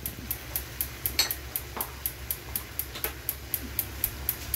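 A low steady hum with an even high ticking about four times a second, and one sharp metal clink about a second in, followed by a few fainter knocks.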